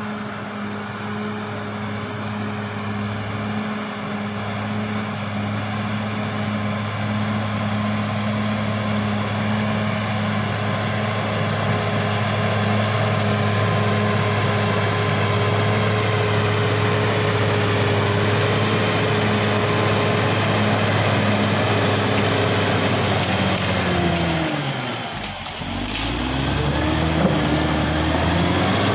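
Diesel engine of a Caterpillar D6R XL crawler bulldozer running steadily under throttle. About 24 seconds in the engine speed sags and climbs back within a couple of seconds, with a single sharp knock near the dip.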